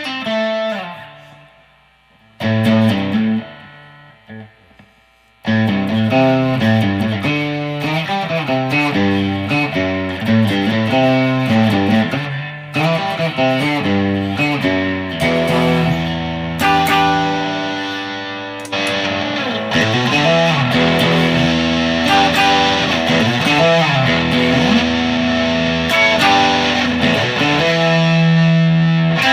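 G&L ASAT Tribute Classic electric guitar with single-coil pickups played through an amplifier. A few ringing notes come first, then a short pause. After that comes continuous picked riffs, settling into sustained chords in the second half.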